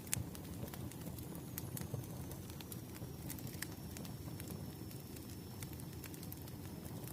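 Burning firewood crackling, with frequent irregular sharp pops over a steady low rumble of flame, and a faint thin high whistle through the middle.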